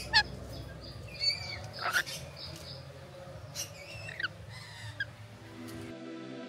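Parrots giving short, scattered squawks and chirps with quick pitch sweeps over a low background hum. Near the end the sound cuts to soft background music.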